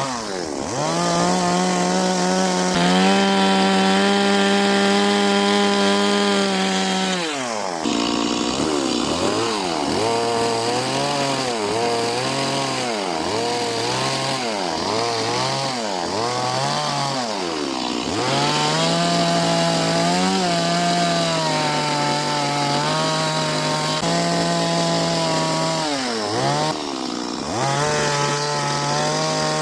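Chainsaw cutting wood for carving. It is held at high revs for several seconds at a time and, through the middle, is let off and revved back up about once a second.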